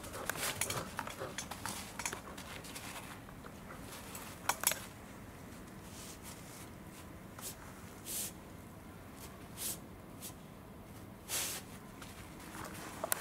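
Welsh corgi handling a tennis ball on artificial turf: soft paw scuffs and small clicks at first, two sharp clicks about four and a half seconds in, then a few short sniffs at the ball, spaced a second or so apart.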